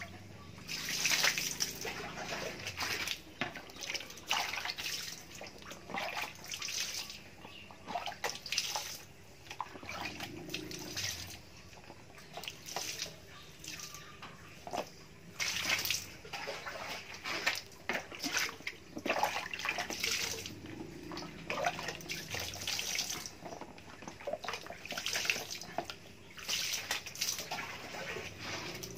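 Water splashing and dripping into a plastic dipper in irregular bursts as wads of white fibre filter padding are rinsed and wrung out by hand.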